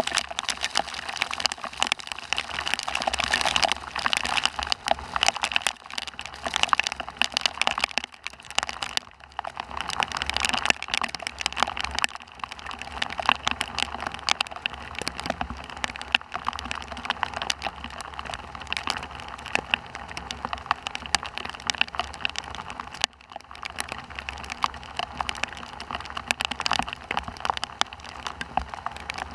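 Heavy thunderstorm rain falling steadily, a dense patter of many drops striking a surface close to the microphone, its level rising and easing every few seconds.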